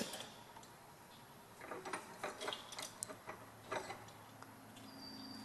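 A scatter of light clicks and taps, about a dozen between roughly one and a half and four seconds in, from handling the foil blade and wire at the vise, over a faint hum.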